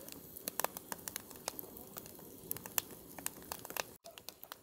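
Campfire crackling: burning wood popping and snapping in irregular sharp clicks, several a second, over a faint steady hiss.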